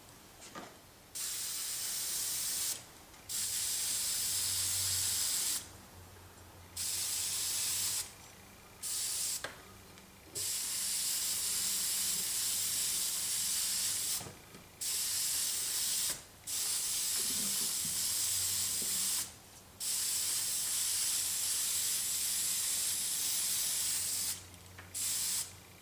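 Spray paint hissing in about nine bursts, each one to five seconds long with short pauses between, as a third coat of red paint goes onto a die-cast toy car.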